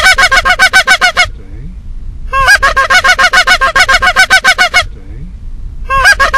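Goose-like honking in three long runs of rapid, evenly spaced notes, about ten a second, the middle run the longest.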